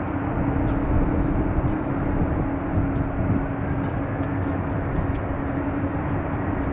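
Jet engine noise from a Boeing 747-400 with Rolls-Royce RB211 engines rolling out along the runway after touchdown: an even, steady rushing sound with a constant low hum running through it.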